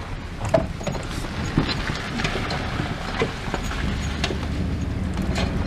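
Truck loaded with long lumber driving slowly through a creek bed: a low engine note with scattered knocks and rattles as it bumps over the rough ground. The engine grows louder near the end.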